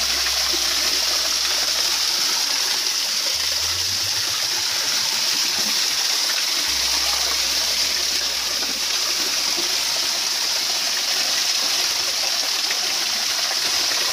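Steady rushing of flowing stream water, an even sound that does not let up.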